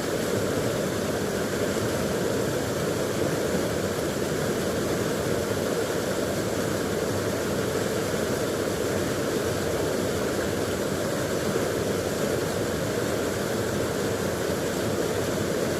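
Steady rushing of stream water flowing over rocks, an even, unbroken noise.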